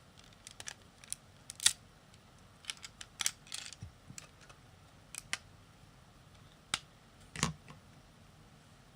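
Plastic LEGO pieces clicking and clattering as they are handled and picked out, about a dozen irregular sharp clicks, the loudest a little under two seconds in.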